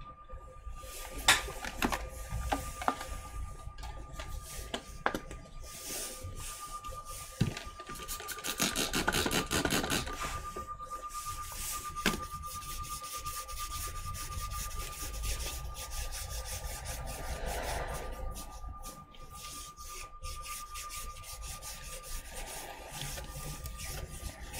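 Cloth rubbing and wiping over laptop parts during cleaning, broken by scattered light clicks and taps from handling. A thin steady tone sits underneath.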